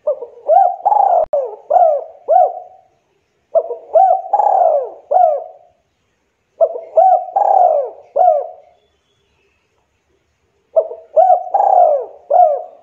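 Spotted dove cooing: four phrases of about five or six short, arched coos each, a longer note in the middle of each phrase, with pauses of one to two seconds between phrases.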